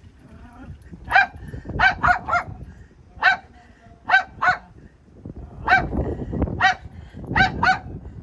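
Small fluffy white dog barking repeatedly, short high-pitched barks in groups of one to three, about eleven in all. It is worked up by a cat sitting on the roof above it.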